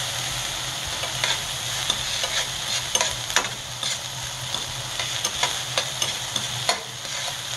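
Sliced mushrooms, diced onion and garlic sizzling in butter in a stainless steel frying pan, stirred with metal tongs that scrape and clack against the pan several times.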